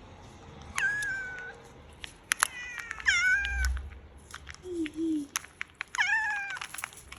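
A cat meowing three times, each meow short and fairly high, about a second, three seconds and six seconds in, with scattered sharp clicks between them.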